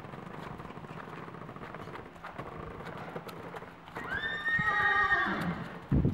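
Hooves of a walking horse clopping on dirt, and about four seconds in a horse whinnies once, a loud call that starts high and falls in pitch over about a second and a half. A thump comes at the very end.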